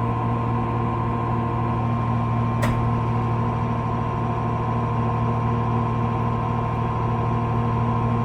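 JR East 205-series electric train giving off a loud, steady, droning hum made of several constant tones, with one short click about two and a half seconds in. It is an abnormal noise of unknown cause, which the uploader takes for a fault left unrepaired on a unit near retirement.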